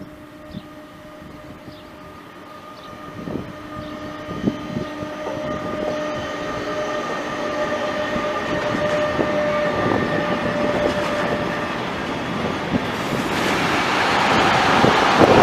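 A train approaching with a steady whine that grows louder, then passing close by with a loud rush of noise for the last couple of seconds.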